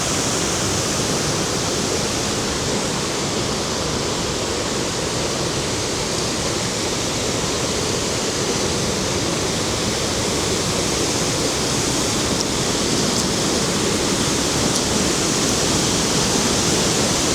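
A waterfall about 30 to 40 feet high, a loud, steady rush of falling water, growing a little louder near the end.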